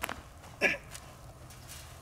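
A soft knock, then about half a second later a short grunt of effort from a man heaving a 90-pound rubber slam ball overhead.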